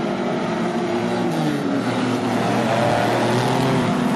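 A pack of superstock race cars' V8 engines running hard on a dirt oval, several engine notes overlapping and rising and falling as the cars go through the turn, getting a little louder past the middle.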